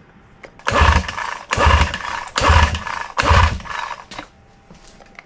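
Evinrude 6 hp two-stroke outboard cranked over four times in quick succession by its pull-start rope, each pull a short rush with a low thud. The spark plug is out and a compression gauge is fitted to the bottom cylinder for a compression test.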